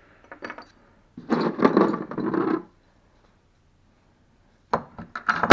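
Small steel drill bits and thread-cutting taps clinking and rattling against each other as they are handled and sorted: a dense rattle of about a second and a half, then a few sharp clinks near the end.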